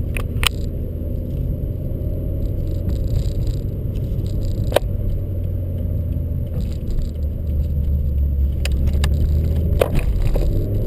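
Car engine running steadily, heard from inside the car, with a few sharp ticks: two near the start, one about halfway and one near the end.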